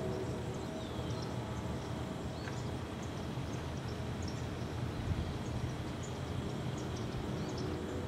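Steady low outdoor rumble with a faint continuous hum, and short, faint high-pitched bird chirps scattered through it.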